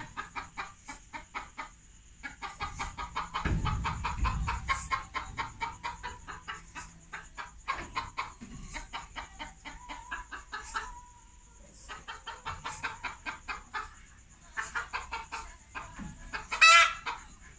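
Chickens clucking in quick runs of short, rapid clucks, with brief pauses between runs, and one short, loud squawk near the end.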